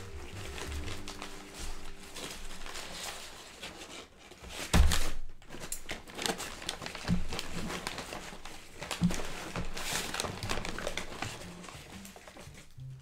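A McDonald's brown paper bag rustling and crinkling as hands rummage inside it and draw out a paper-wrapped sandwich. There is a heavy thump about five seconds in.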